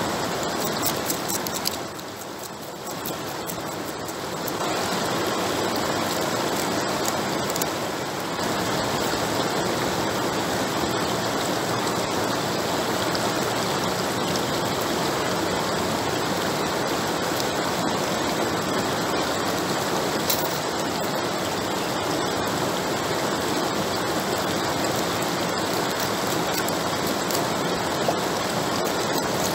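River water rushing steadily over a low weir and past the rocks, a constant wash of noise that grows louder about four seconds in.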